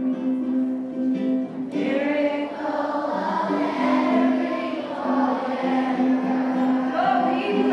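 A large group of children singing together along with music over a steady held low note; the massed voices swell in about two seconds in.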